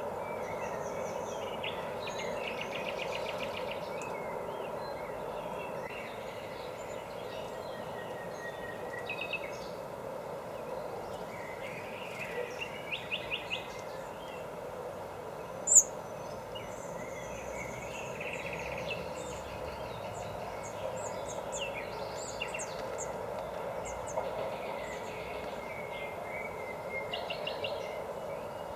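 Small songbirds calling and chirping on and off, with several fast rattling trills, over a steady background hum. A single sharp click about halfway through stands out as the loudest sound.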